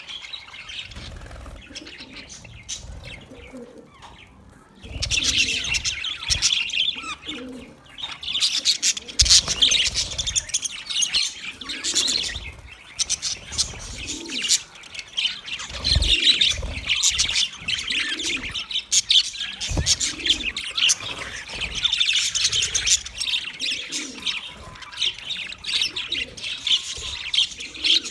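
A group of budgies (budgerigars) chirping and chattering in a rapid, overlapping stream of short high chirps. It is sparser at first and grows busy about five seconds in, with a few low thumps mixed in.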